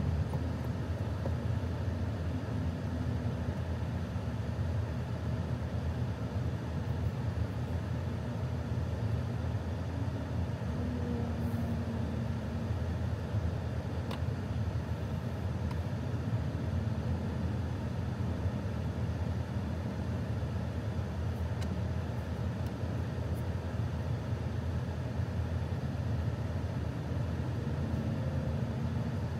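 Range Rover's engine idling, heard inside the cabin as a steady low rumble. A faint click comes about halfway through.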